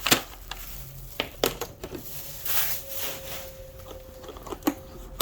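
Small plastic diamond-drill storage containers being handled: a handful of sharp, separate clicks and knocks of hard plastic spread over several seconds.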